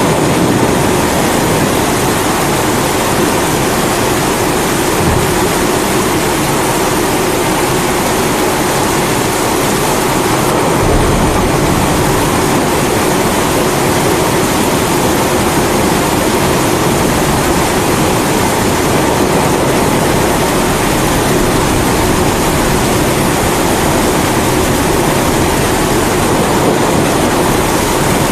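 Kerosene pressure stove (primus) burner running with a steady rushing sound, layered with rain, and a low rumble of thunder about a third of the way in.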